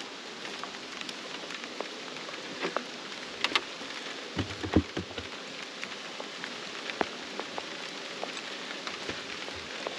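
Steady rain falling, with scattered light knocks and a few dull thumps as wooden beehive boxes are handled; the heaviest thumps come about four and a half seconds in.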